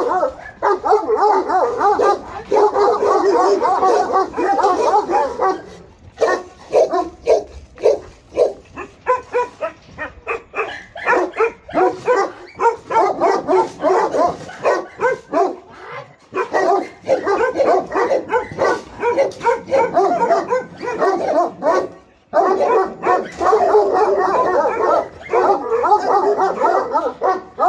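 Several large guard dogs, Central Asian Shepherds (Alabai) and a Tibetan mastiff, barking hard and overlapping at a person by their kennel fence. About six seconds in the barking thins to separate barks in quick succession, then it builds back to a dense chorus, with a brief break near the end.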